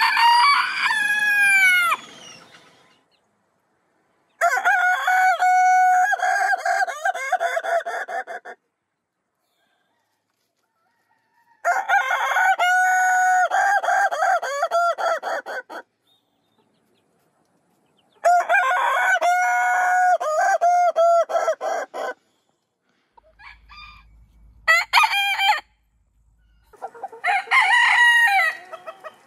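Roosters of different heritage breeds crowing one after another. A Silkie crows briefly at the start. Then come three long crows of about four seconds each, broken into rapid stuttering notes, from a Ketawa x Asil cross, a 'laughing' rooster. Near the end a Pekin bantam crows.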